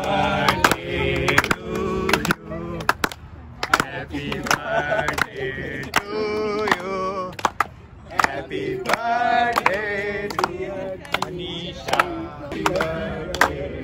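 Several voices singing together, with sharp hand claps scattered throughout.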